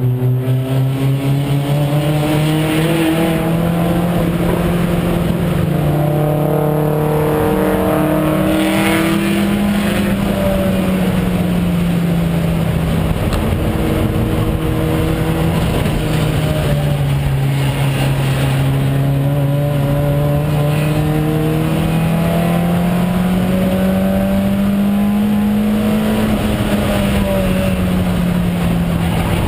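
VW Jetta race car's engine heard from inside its stripped cabin at racing speed, its pitch rising and falling in long smooth sweeps as the driver accelerates and eases off, over steady wind and road noise.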